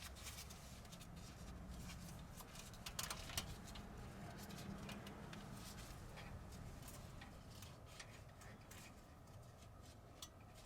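Faint scattered clicks and taps of light handling, a couple of them sharper about three seconds in, over a low steady rumble.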